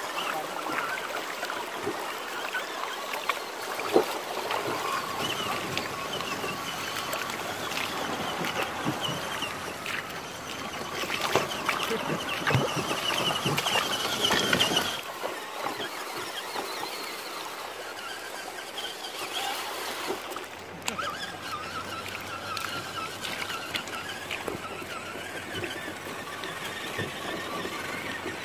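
A 1:10 scale RC rock crawler's electric motor and drivetrain whining, the pitch wavering up and down with the throttle, over rushing, splashing river water as it fords a shallow rocky stream. About halfway through the sound changes abruptly and the whine goes on as the truck crawls over loose stones.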